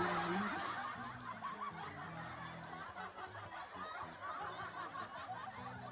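Many people snickering and chuckling at once, like a laugh-track sound effect, starting suddenly and running on over soft background music.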